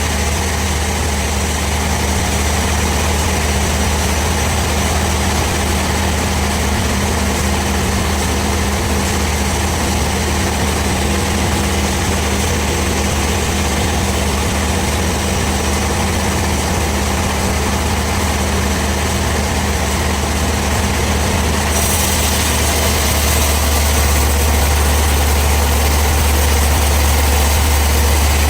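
Sawmill machinery running steadily, a continuous low engine-like hum with steady tones and hiss above it. It grows slightly louder near the end.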